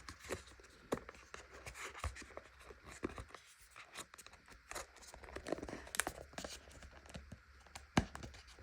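Watch box and packaging being handled by hand: scattered light clicks and knocks with soft rustling of paper.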